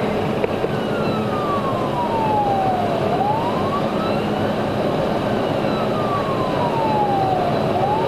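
Police siren in wail mode: its pitch climbs for about a second and a half, then slides down for about three seconds, over and over. It is heard from inside the pursuing cruiser over steady road noise.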